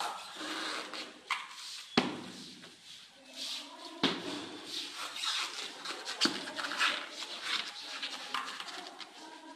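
Thin foam carpet underlay rustling and crackling as it is spread and pressed down by hand, with three sharp clicks, about two, four and six seconds in.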